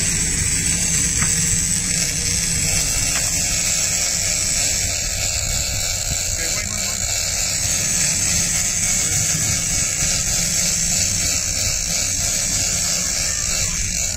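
Big-game lever-drag reel's drag screaming as a hooked bluefin tuna runs line off, a steady high-pitched buzz over a low rumble.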